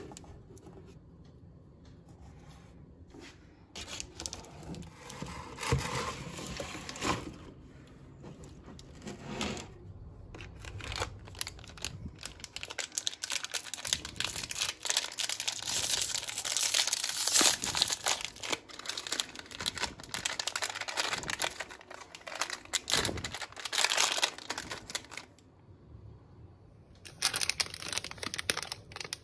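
Plastic snack wrapper being crinkled and torn open by hand: a dense crackling rustle that starts about four seconds in, with a short pause near the end.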